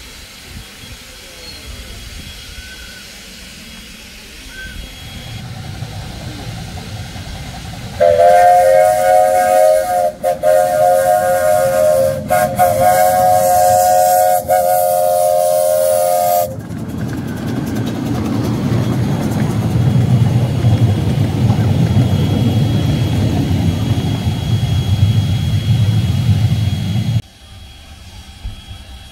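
A train's chime whistle blowing a three-note chord, starting about eight seconds in and held for about eight seconds with two short breaks. It is followed by a steady low rumble that cuts off suddenly near the end.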